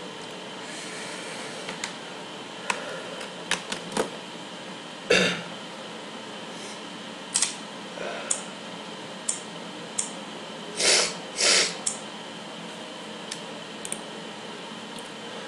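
Scattered clicks and knocks and a few short rustles over a steady background hiss, as a phone is plugged into the computer with a USB cable.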